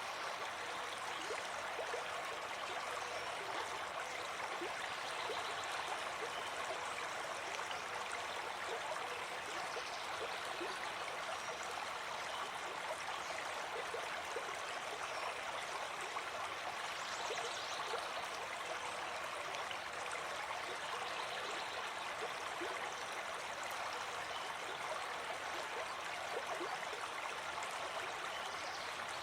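Running water flowing steadily, an even rushing with fine bubbling and gurgling.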